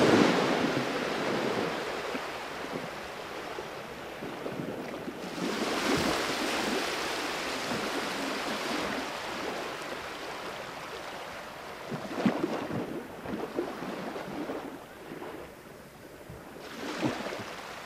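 Wind buffeting the microphone outdoors: a rushing noise that swells and fades in gusts.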